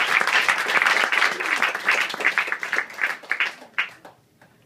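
Audience and performers applauding at the end of a comedy set, the clapping thinning out to a few last claps and stopping about four seconds in.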